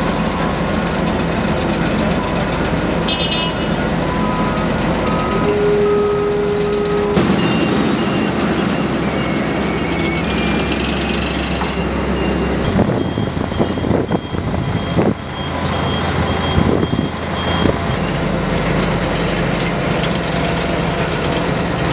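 Diesel engines of an asphalt paver and a road roller running steadily, with short electronic beeping tones now and then.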